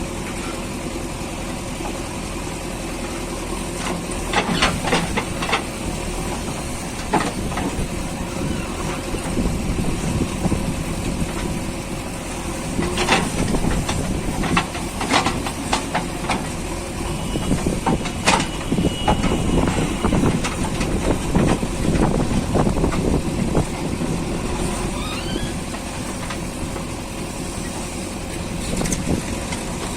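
JCB 3DX backhoe loader's diesel engine running steadily under working load, with hydraulic hiss and a number of sharp knocks, bunched about a sixth of the way in and again around the middle, as the digging arm and bucket work.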